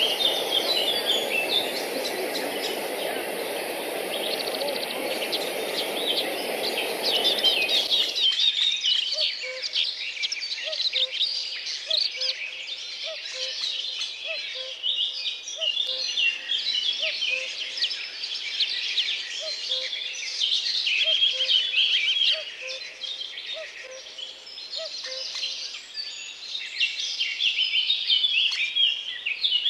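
Chorus of many songbirds chirping and singing busily. For the first eight seconds a steady rushing noise runs under it and then cuts off abruptly, after which a lower note repeats about once a second beneath the chirping.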